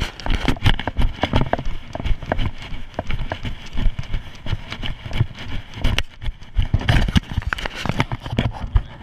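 Boots running through snow: quick, irregular crunching thuds of footsteps heard close up from a body-worn camera.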